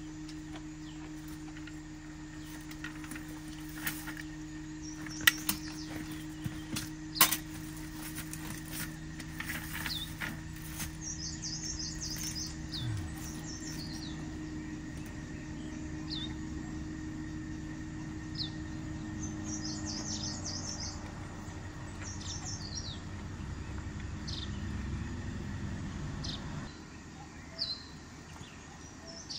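Wild birds chirping in short, high calls, more often from about ten seconds in, over a steady low hum that cuts off suddenly near the end. A few sharp clicks early on come from chopsticks and tableware on the bowl and pan.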